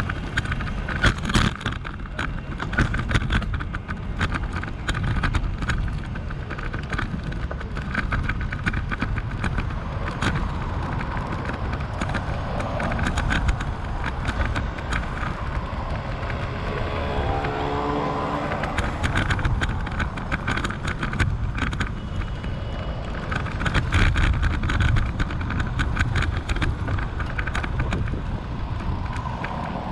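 Road traffic passing, with a steady low wind rumble on the microphone and scattered crackles. About halfway through, a vehicle goes by with a pitched engine note.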